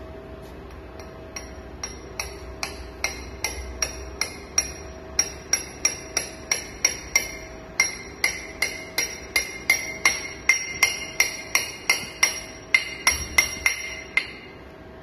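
Rapid metal-on-metal tapping on the housing of an Ingersoll Rand 231C half-inch air impact wrench being rebuilt, about two to three strikes a second, each with a short bright ring. The taps start faint and grow louder after a couple of seconds, then stop just before the end.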